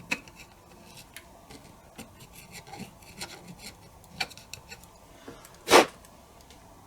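Small clicks, taps and scrapes of hand tools and small parts on a cassette deck's transport mechanism as it is taken apart, with one louder short scrape near the end.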